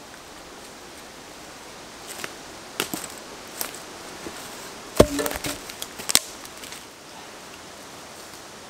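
Sharp woody knocks and cracks as freshly cut maple logs are handled. The loudest is a hollow knock with a short ring about five seconds in, heard over a steady background hiss.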